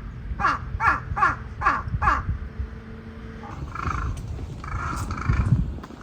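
Crow cawing: a quick run of about six harsh, falling caws at roughly two a second, then two more calls a few seconds later.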